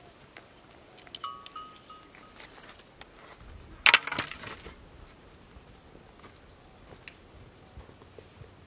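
A large cloth being shaken out in the air, a loud rushing flap about four seconds in. A few short high chirps and faint clicks come before it.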